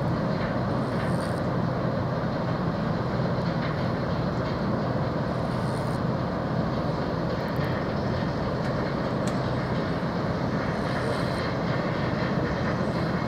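Steady low drone of a passing container ship's engine, a few even hum tones under a constant rushing noise.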